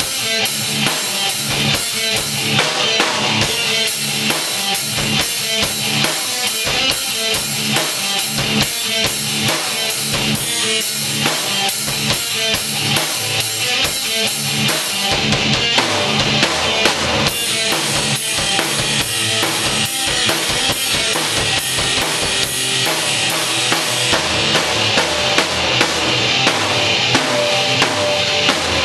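A rock band playing live, led by a drum kit played hard: bass drum, snare and a constant wash of cymbals in a driving beat, with an electric guitar playing along.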